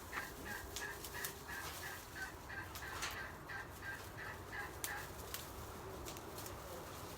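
A bird calling in a fast run of short, evenly spaced notes, about three a second, stopping about five seconds in. Scattered faint clicks and snaps sound over it.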